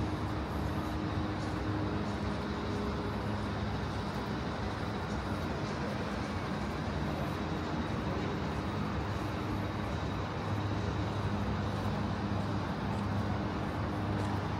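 Steady road traffic: an even rush of passing vehicles, with a low engine hum that fades in and out.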